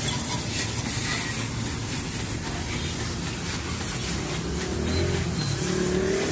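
Hose water jet spraying onto a Honda CD70 motorcycle being washed, a steady hiss and splatter of water, with a steady low machine hum underneath.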